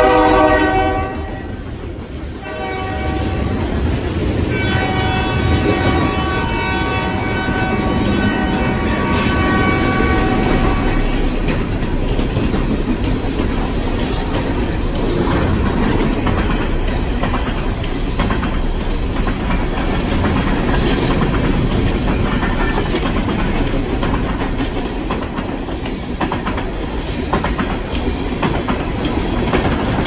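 Freight train passing close by: the lead locomotive's air horn cuts off about a second in, and a train horn sounds again from about four to eleven seconds. Then comes the steady rumble of freight cars rolling past, with a run of wheel clicks.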